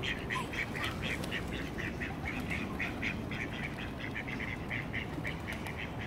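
A bird giving a long, even run of short high calls, about five a second, over a low background rumble.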